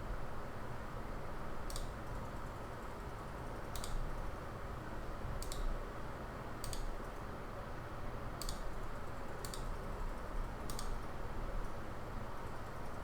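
Computer mouse clicking, about seven single clicks spaced a second or two apart, over a steady low background noise.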